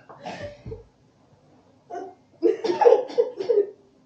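A woman laughing breathlessly in two bouts: a short burst at the start, then a pause, then a run of quick laughs about two and a half seconds in.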